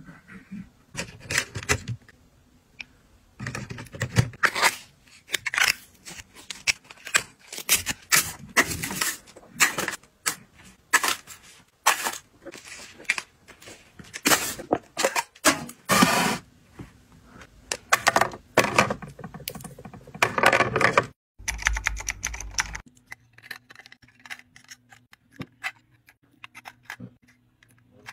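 Close-up handling of plastic skincare bottles and packaging: a busy run of clicks, taps, crinkles and tearing, with plastic rustling as packaging goes into a bag-lined bin. Near the end the sounds thin to quieter light taps of plastic contact-lens blister packs set into a clear acrylic box.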